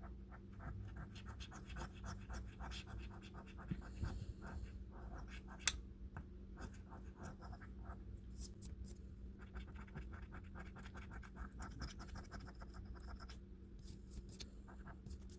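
A coin or scraper scratching the latex coating off a lottery scratch-off ticket in quick rapid strokes, with short pauses between bouts and a sharp tap about six seconds in.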